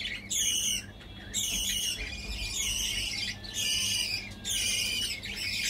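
A run of high-pitched, bird-like squawking calls, one about every second, each falling in pitch and lasting half a second to a second.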